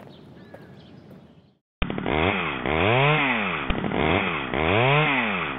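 Chainsaw running and being revved up and down, its pitch rising and falling about once a second; it starts abruptly about a second and a half in.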